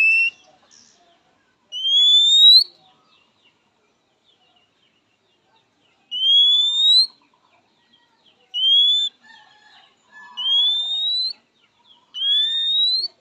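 Male oriental magpie-robin giving a series of loud, clear whistles, each a single note sliding upward and lasting under a second, five of them with pauses between. This is the kacer's typical call to a rival.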